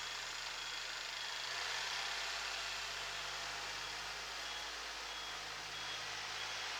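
Kubota SL28H tractor's diesel engine running steadily; its note steps up about a second and a half in. From about two seconds in, a faint high reversing buzzer beeps about twice a second as the tractor backs up.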